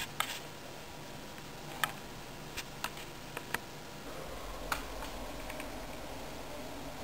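Scattered single clicks of a computer keyboard and mouse, a few in each second and unevenly spaced. A low steady hum comes in about four seconds in.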